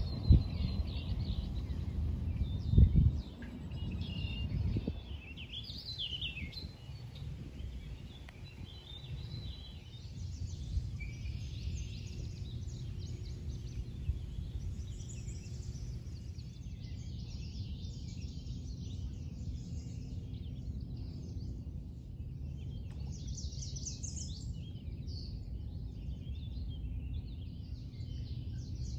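Wild birds chirping and calling on and off over a steady low rumble, with a couple of loud thumps in the first few seconds.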